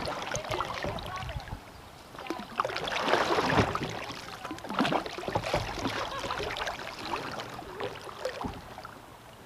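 Double-bladed kayak paddle strokes: the blades dipping into and pulling through river water, splashing and dribbling with each stroke. The splashing is loudest about three seconds in.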